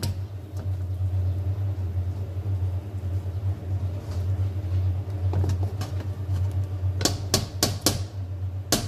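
Wooden spoon pushing and scraping boiled rice out of a steel mesh colander into a metal cooking pot, with a few sharp taps near the end as the spoon knocks against the metal. A steady low hum runs underneath.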